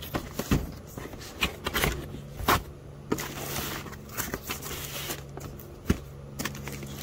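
A car-stereo box being opened and its packaging and paperwork handled: irregular rustles, scrapes and knocks over a steady low hum.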